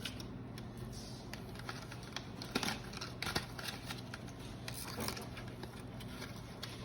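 Scattered light clicks and rustles of hands handling the speaker's box and its accessories, a few sharper clicks standing out now and then.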